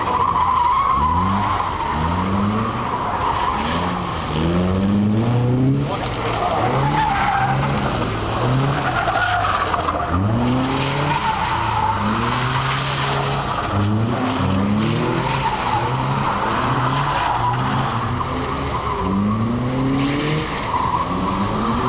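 Lotus Seven-style kit car drifting. Its engine revs rise again and again, every second or two, as the throttle is stabbed, over a steady squeal from the sliding tyres.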